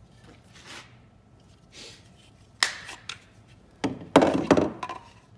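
Hard plastic knocks, clicks and scraping of a power-tool battery and battery adapter being handled and fitted together: one sharp click about two and a half seconds in, then a louder cluster of knocks and rubbing about a second later.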